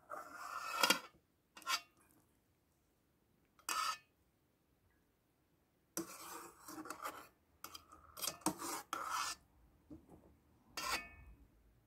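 A cooking utensil scraping and rubbing against a stainless steel bowl and pot in about six short bursts with pauses between, as cooked instant noodles are stirred and lifted out.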